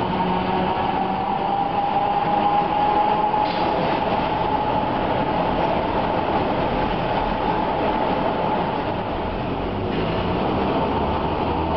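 Tram running on street rails, heard from inside the passenger car: steady running noise with a whining tone that slides slowly down in pitch, then begins to rise again near the end.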